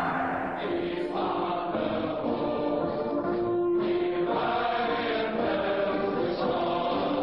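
Slow, solemn background music of long held notes, with choir-like voices.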